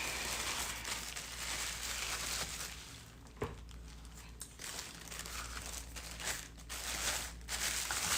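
Plastic sheeting crinkling and rustling in irregular handfuls as pottery dishes are wrapped up in it.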